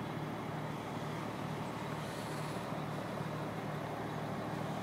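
A crane's diesel engine running steadily, with a low throb about twice a second.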